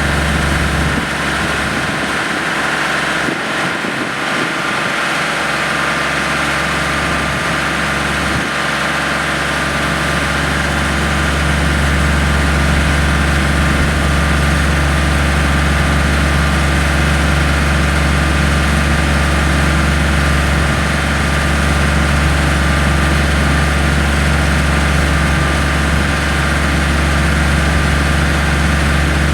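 Yanmar GC333 combine harvester running steadily, its engine and machinery giving a continuous hum with several held tones; the low rumble grows stronger about eight seconds in.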